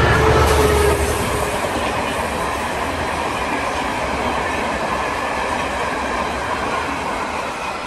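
Class MZ diesel locomotive passing close by with its engine running, loudest in the first second. It is followed by a train of empty hopper wagons rolling steadily over the rails, fading a little near the end.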